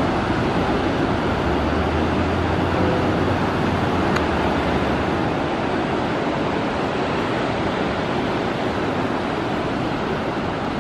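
Ocean surf, a steady even wash of noise with no separate wave crashes standing out.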